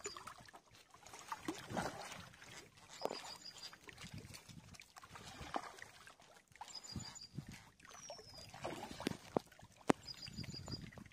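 Hooked tilapia splashing and thrashing at the water's surface as it is played toward a landing net, in irregular bursts. A short high chirping repeats several times, and two sharp clicks come near the end.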